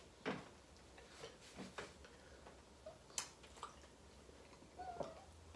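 Quiet eating sounds: faint, scattered clicks and soft taps of fingers working pounded yam in a bowl of soup, with a brief faint voice-like hum about five seconds in.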